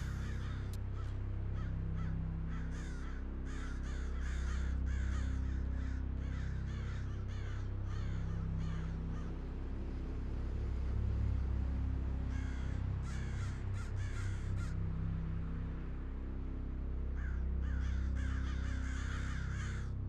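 Crows cawing in rapid runs of harsh calls, in four bouts separated by short gaps, over a steady low droning sound-design bed.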